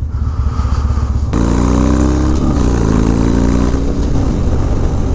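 Harley-Davidson Dyna V-twin motorcycle engine accelerating under throttle. About a second in it picks up, rising in pitch. A little past two seconds in the pitch drops at a gear change, then rises again before easing off.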